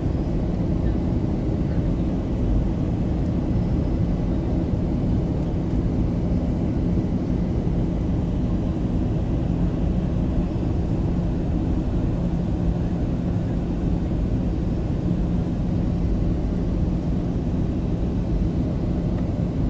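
Airliner cabin noise from a Boeing 737 on descent, heard at a window seat: a steady low rumble of jet engines and airflow with a constant low hum.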